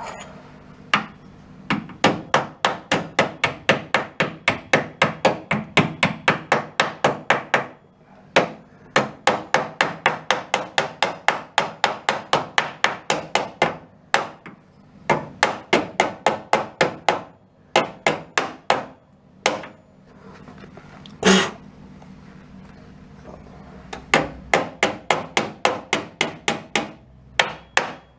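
Hammer blows on the car's sheet-steel sill panel in quick, even runs of about four or five strikes a second, broken by short pauses. One louder, ringing clang comes about two-thirds of the way through.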